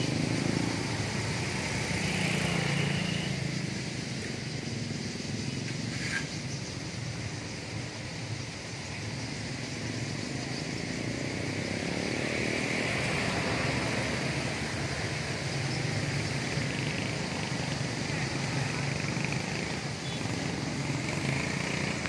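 Street traffic with motorcycles running past, mixed with the continuous twittering of a huge flock of swallows gathered on overhead wires. The chatter swells and fades, and there is a sharp click about six seconds in.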